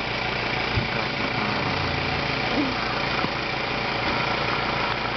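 Cough Assist machine (a mechanical insufflator-exsufflator) running with a steady hum, during a machine-assisted cough to clear secretions from the lungs.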